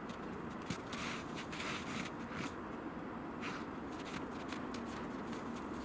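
Golden retriever's paws and snout scuffing and crunching in snow: an irregular run of short, dry scrapes.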